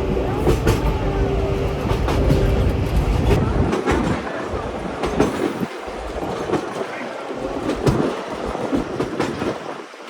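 Vintage train running on rails: a heavy rumble with the clickety-clack of wheels over the rail joints, easing and thinning out after about four seconds.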